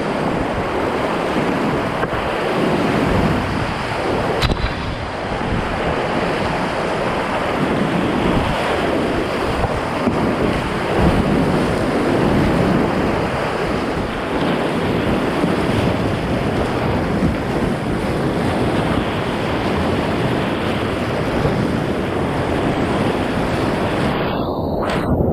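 Whitewater of a creek rapid rushing steadily.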